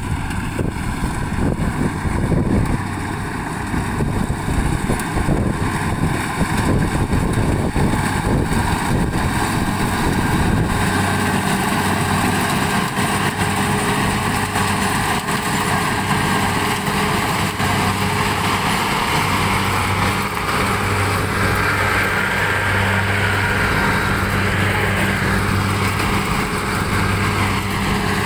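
Kubota combine harvester's diesel engine running steadily as the machine cuts rice. It is gusty and rough for about the first ten seconds, then settles into a clear, steady hum as the machine comes close.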